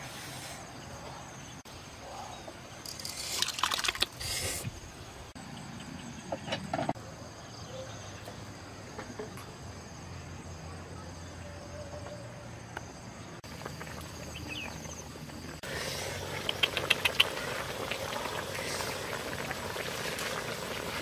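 Insects chirping steadily, with scattered clicks and knocks. The background changes abruptly several times, and the last few seconds are louder and busier, with rapid ticking.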